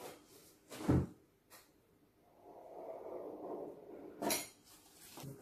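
Knocks and taps on a kitchen counter while a knife cuts a sheet of puff pastry on its paper, the loudest a dull knock about a second in. Between the knocks there is a soft scraping.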